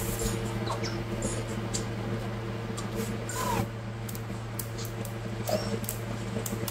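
White plastic loose-leaf binding rings clicking and snapping as they are pulled open and fitted onto punched notebook pages, with a few short squeaks, the loudest at about three and a half seconds, over a steady low hum.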